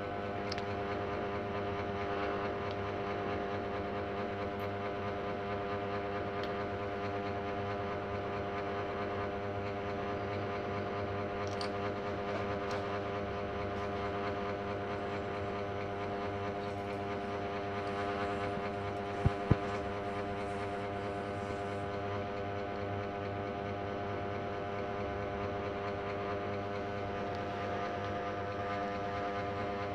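Steady machine hum made of several even tones, like a small electric motor running. About two-thirds of the way through come two sharp clicks a fraction of a second apart, from the metal trigger parts being handled.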